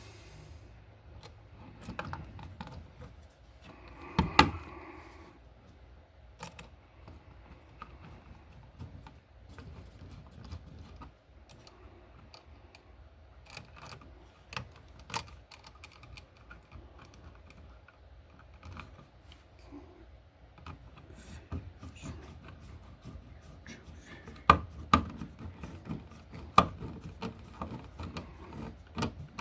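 Irregular clicks and knocks of a wall receptacle and its wires being handled and pushed back into the electrical box, with one louder knock about four seconds in and a run of sharper clicks near the end.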